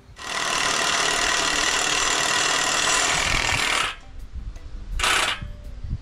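A loud power tool runs steadily for nearly four seconds, stopping abruptly, then runs again in one short burst about a second later.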